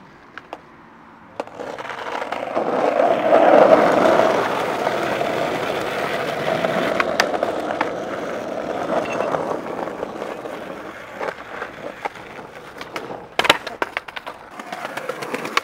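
Skateboard wheels rolling on rough street tarmac, a steady grainy rumble that builds about a second and a half in and eases off after about ten seconds. Near the end come several sharp clacks of the board.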